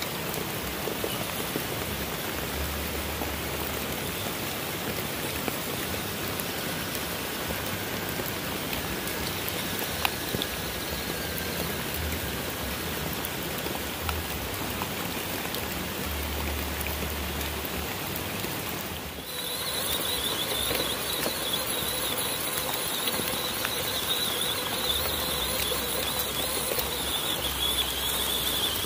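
WPL C24 RC trucks driving offroad: a steady noisy rush of small electric motor, gears and tyres. After a cut about two-thirds of the way in, a steady high electric-motor whine runs on top.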